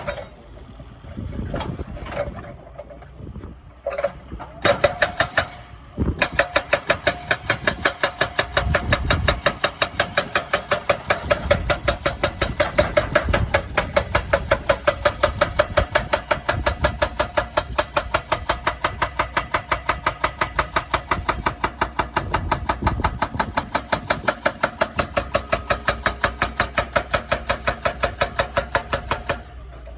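Excavator-mounted hydraulic breaker hammering in a fast, even train of sharp blows, about four to five a second, after a few single strikes and a short burst; the excavator's engine runs underneath. The hammering stops abruptly near the end.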